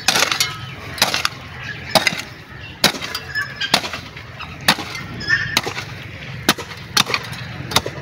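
A long-handled digging hoe striking hard, compacted garden soil about once a second, each blow a sharp thud and scrape as the blade bites in.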